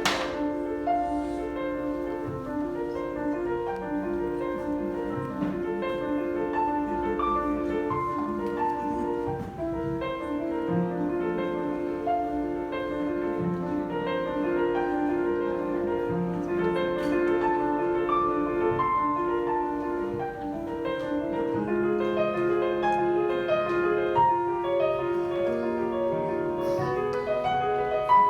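Slow instrumental keyboard music, with long overlapping notes that change every second or so.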